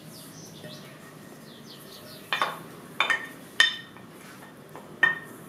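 A ceramic serving dish clinks against a glass salad bowl four times, each knock ringing briefly, as sweet corn is tipped out of it into the bowl.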